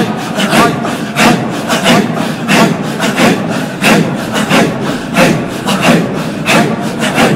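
A circle of men chanting Qadiri dhikr in unison: a breathy, rhythmic throat chant in heavy repeated strokes, about three every two seconds.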